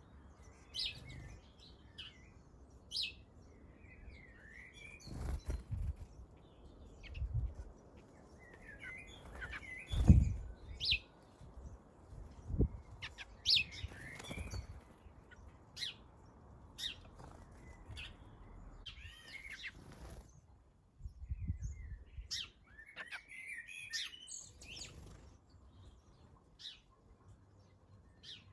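Garden birds at a feeder chirping in short, scattered calls, with a few dull low thuds, the loudest about ten seconds in.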